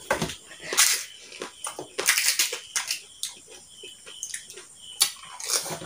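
Close-up eating sounds of fuchka (pani puri): crisp puri shells being cracked, dipped in spiced water and crunched and slurped in quick succession. They come as a series of short, noisy bursts about a second apart.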